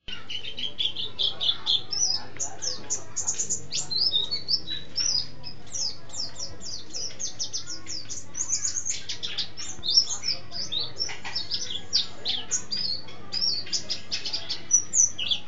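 White-eye (pleci) singing without pause in long, fast rolling phrases of high chirps and twitters.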